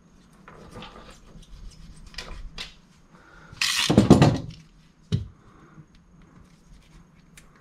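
Soft clicks and scrapes as a rubber wiper refill strip is cut with a utility knife. About halfway through comes a louder burst of handling noise lasting about a second, then a single knock shortly after.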